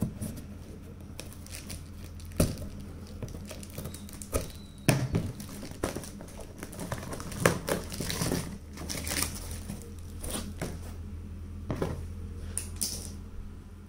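Cardboard shipping box being cut and torn open: irregular scrapes, crinkles and tearing of packing tape and cardboard flaps, with a few sharp knocks, over a steady low hum.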